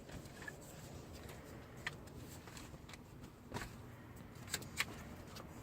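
A few scattered light clicks and knocks from an infant car seat base being fitted and tightened in a van, over a low steady background.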